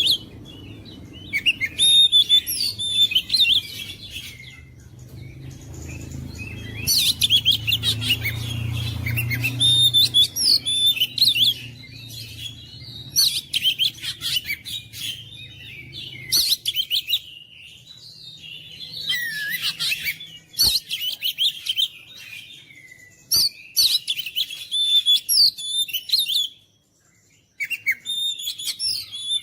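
Oriental magpie-robin (kacer) singing: loud phrases of rapid, varied whistles and trills a few seconds long, with short breaks between. A low hum runs under the song for a stretch in the first half.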